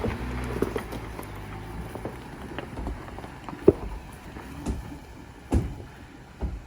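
Jeep Gladiator Rubicon crawling slowly over a rocky trail: a low, steady engine drone under irregular crunches and knocks of tyres and underbody on rocks and gravel, the sharpest knock a little past halfway.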